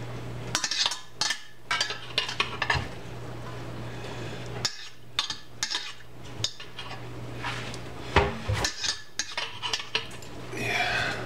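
Metal spoon clinking and scraping against a stainless steel mixing bowl as cooked noodles are stirred in, in irregular short knocks, over a steady low hum.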